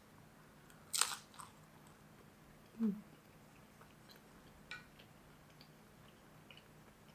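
Close-up eating sounds: a crisp, crunchy bite about a second in, then quieter chewing with small wet mouth clicks and a brief low hum a little before the three-second mark.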